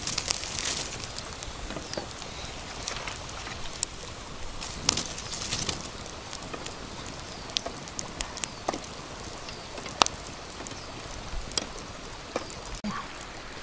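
Open wood fire crackling, with irregular sharp pops and snaps over a steady hiss; bamboo strips clack now and then as they are laid across a wooden grill rack above it.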